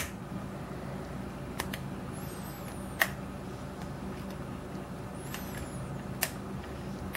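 A handful of sharp, sparse clicks, one every second or so, from a steel hook pick and tension tool working the pin stack of a brass Yale-style pin-tumbler cylinder during single-pin picking, over a steady low hum. The picker is probing pin four, which keeps going into an overset.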